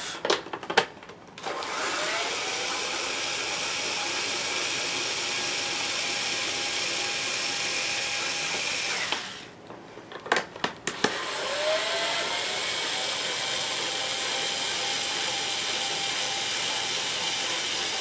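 Electric screwdriver backing out the screws of a vacuum cleaner's bottom cover. It runs in two long spells of about seven seconds each, its motor whine rising in pitch as it spins up at the start of each. A few short clicks and knocks come before each run.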